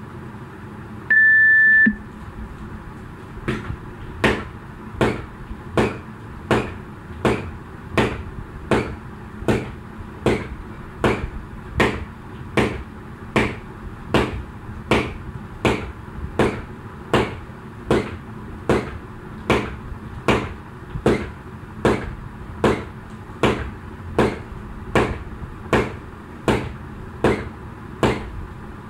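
A single long, high interval-timer beep about a second in, then jump rope skipping from a few seconds in: an even slap on each turn of the rope, about three every two seconds.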